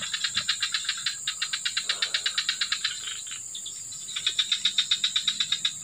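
An insect calling with a rapid, even pulsing chirp, about ten pulses a second, that stops for about a second partway through and then resumes, over a steady high-pitched buzz.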